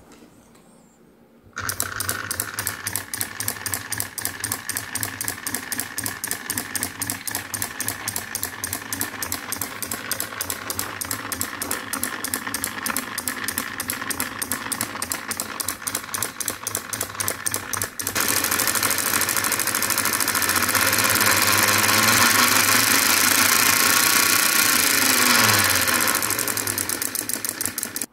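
Small single-cylinder diesel engine sound of a miniature Kubota engine model starting and running with a fast, even knock. About two-thirds of the way through it switches to a louder, busier run, then stops abruptly.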